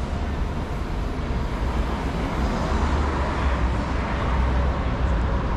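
City road traffic: a steady rumble of passing cars and buses, a little louder in the second half.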